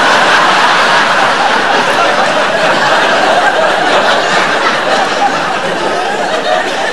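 Large audience laughing hard, the laughter easing off slightly toward the end.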